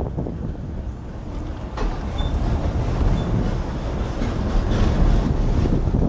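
Engine and road noise heard from inside a moving vehicle, a steady rumble mixed with rattling. It gets louder and fuller about two seconds in.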